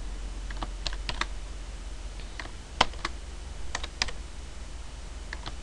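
Computer keyboard being typed on: separate sharp keystrokes in short, uneven runs with brief pauses between them, over a faint steady low hum.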